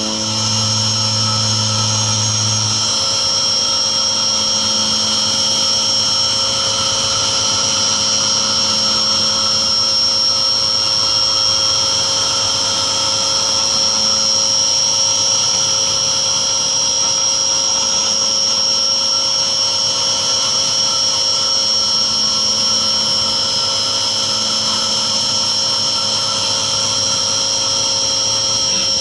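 Mini vertical machining centre's spindle whining steadily as an end mill cuts a 6061 aluminium part under flood coolant. The whine holds several level high tones over a steady noisy hiss.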